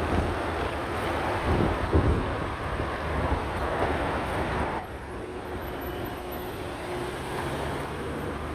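Road traffic noise at a city street crossing: vehicles running past with a low rumble, louder in the first half and dropping off suddenly about halfway through.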